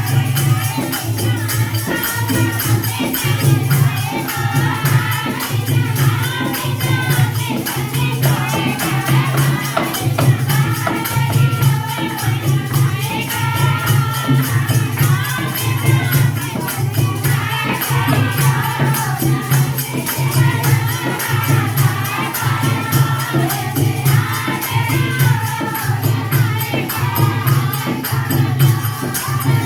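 Devotional bhajan music: singing over fast, steady jingling percussion and a pulsing low drum beat.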